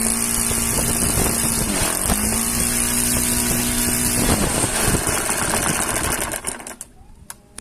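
O.S. FS-72 four-stroke glow model-aircraft engine running steadily, with a brief throttle dip about two seconds in. About four seconds in its pitch falls away, and the engine winds down and stops near the end.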